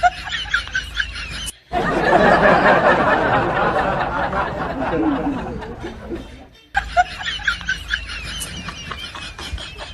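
People snickering and laughing, with a louder, denser stretch of sound in the middle between two brief cuts to silence.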